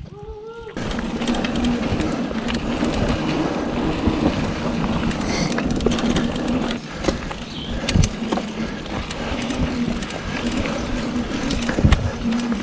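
Trek Fuel EX 5 mountain bike being ridden along a dirt trail: steady tyre and riding noise with scattered rattles and knocks from bumps.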